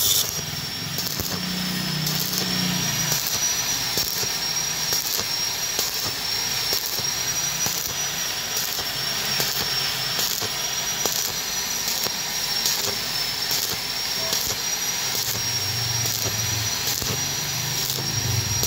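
Stick-welding arc on thin-walled galvanised square tube, a steady crackling hiss with regular sharp pulses in it. A thin, steady high whine sits over the arc.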